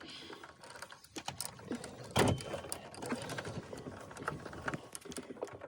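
Plastic dashboard trim and the instrument cluster's clips clicking and rattling as they are unclipped and handled, with a louder knock about two seconds in.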